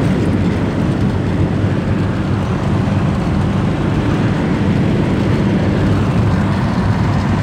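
Loud, steady vehicle engine rumble, heavy in the low end, which drops away right at the end.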